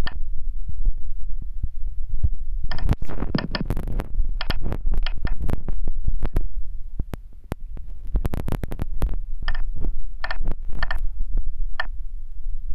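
Fingertips tapping a phone's touchscreen keyboard, heard as quick thumps and clicks through the phone's body over a steady low rumble, with short beeps in two clusters.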